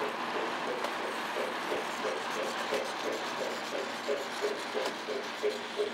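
An O scale model coal train's hopper cars and caboose rolling along the track, a steady rolling rumble with a quick regular clicking of the wheels, about three to four clicks a second.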